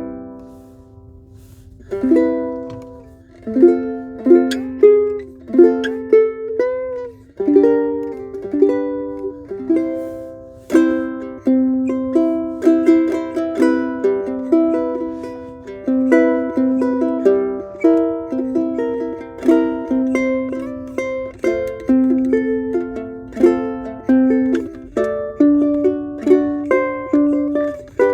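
Martin Style 3M Ditson dreadnought-body ukulele strung with Aquila strings, played fingerstyle with plucked single notes and chords. A chord rings out at the start, then a steady picked melody begins about two seconds in and continues.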